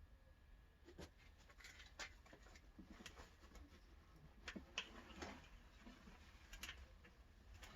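Faint rustling and light taps of hands handling worm bedding and a worm bin, scattered soft clicks and scrapes every second or so.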